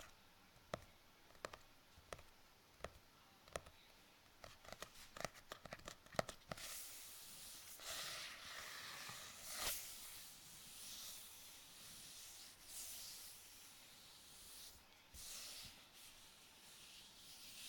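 Faint close-up handling sounds of small objects: a regular series of light clicks, about one every 0.7 s, that crowd together around five seconds in, followed by a run of soft swishing, rubbing strokes.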